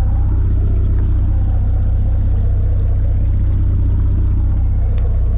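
Fishing boat's engine idling: a steady low rumble that does not change, with one short sharp click near the end.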